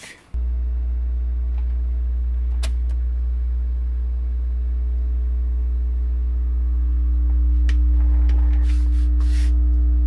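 Loud, steady low electrical hum from the speaker wired to the open Sony TC-K5 cassette deck, with faint higher overtones; it starts abruptly just after the beginning and holds unchanged.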